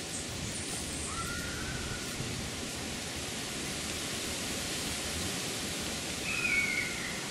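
Steady wind noise among trees, with short bird chirps about a second in and again near the end, the later ones a little louder.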